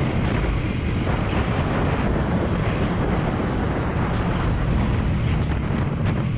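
Motorcycle riding at highway speed: a steady rush of wind on the rider's microphone over the running engine.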